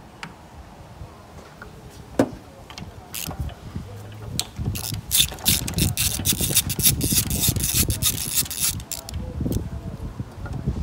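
Hand socket ratchet clicking as a condenser fan bolt is undone: a few single clicks and knocks, then a quick run of clicks lasting about four seconds from around halfway through.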